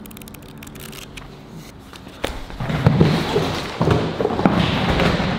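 Pages of a small paper manual flicked through in quick clicks. About two seconds in, louder rustling and clattering takes over, with several thumps.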